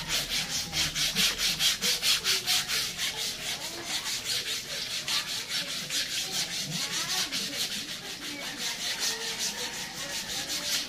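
A brush scrubbing a motorcycle during a wash: quick, even back-and-forth strokes, about four a second.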